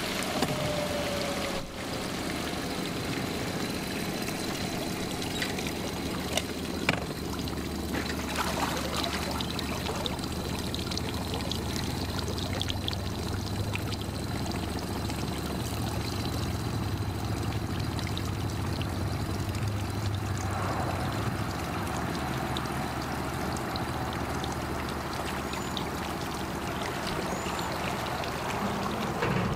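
Small Suzuki outboard motor idling on an aluminium fishing boat: a steady low hum under a running, trickling water sound.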